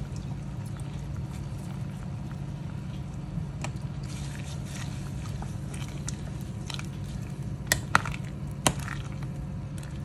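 Broth simmering in a stainless-steel pot over a steady low hum, as a ladle stirs lemon basil leaves into the curry. In the second half the ladle knocks against the pot a few times, three sharp clinks close together being the loudest sounds.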